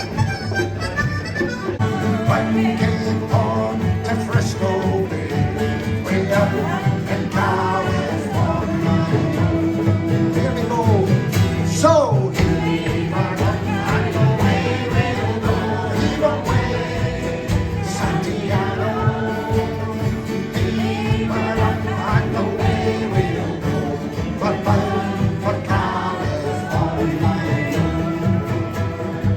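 Live folk band playing a tune, with a harmonica carrying the melody over sustained chords.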